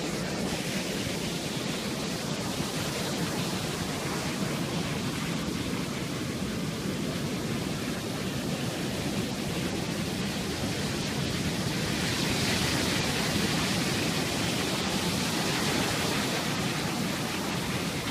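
Pacific Ocean surf breaking on a sandy beach: a steady rush of waves that swells a little louder about two-thirds of the way through.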